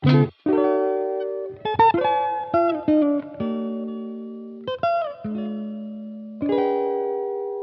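Background music of plucked guitar: a few notes picked out, then chords left to ring and fade.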